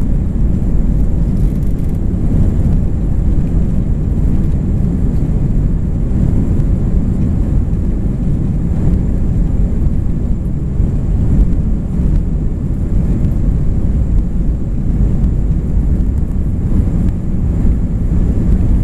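Inside the cabin of an Airbus A320 rolling on the ground before takeoff: a steady low rumble of the jet engines and the moving airframe, with a faint steady high whine.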